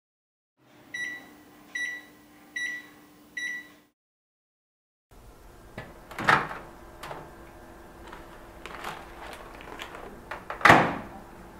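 Microwave oven: four evenly spaced electronic beeps over its running hum. After a short silence the hum comes back with a few clicks and knocks, and one loud bang near the end as its door is handled.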